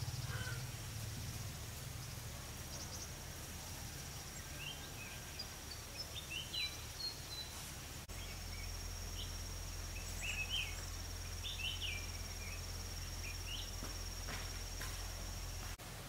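Outdoor ambience: a steady high-pitched insect whine, with small birds chirping in short calls through the middle, over a low steady hum.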